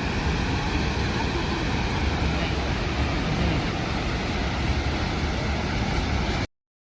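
Steady roar of a large waterfall, Chitrakote Falls, a dense rushing noise heavy in the low end. It cuts off abruptly near the end.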